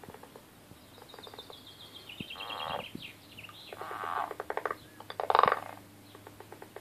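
European water frogs croaking: bouts of fast, rattling pulsed croaks, three loud ones about two, four and five seconds in, the last the loudest, with scattered clicks and a higher falling trill before the first. The uploader takes the calling for angry frogs fighting.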